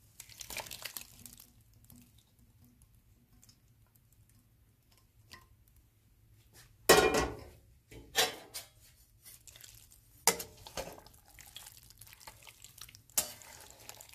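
Metal utensils knocking and scraping against a stainless steel pan and bowl as thick spiced lemon-pickle masala is scooped out onto cut lemon pieces. There are a few sharp clanks, the loudest about seven seconds in.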